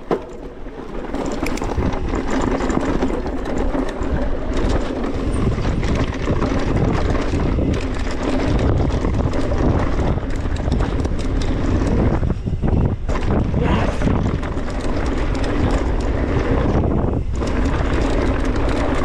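Wind buffeting the microphone of a helmet- or bike-mounted action camera on a fast mountain-bike descent, with tyres rolling over dirt and the bike rattling over bumps. It dips briefly about twelve and seventeen seconds in.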